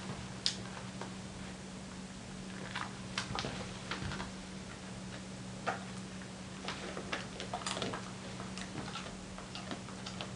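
Scattered light clicks and taps, a dozen or so at uneven intervals, from a Dalmatian in a basket muzzle being hand-fed treats, over a faint steady hum.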